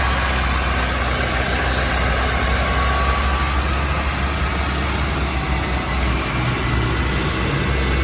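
Honda Civic engine idling steadily, as it is run during the air-conditioning system's refrigerant recharge.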